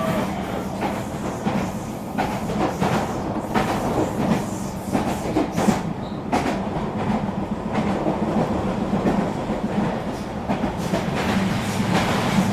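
Eurobahn RE3 regional train running along the track. There is a steady rumble and hum, with irregular wheel clicks and knocks over rail joints.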